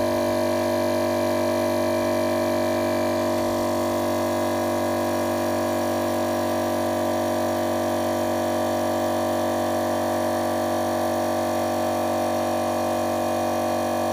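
Electric air pump running with a steady, unbroken hum, pressurizing a keg of tennis balls toward 30 psi.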